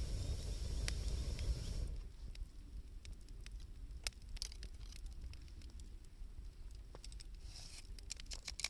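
Wood fire of scrap 2×4 lumber and scavenged wood crackling, with scattered sharp pops and a quick run of crackles near the end. A low rumble fills the first two seconds.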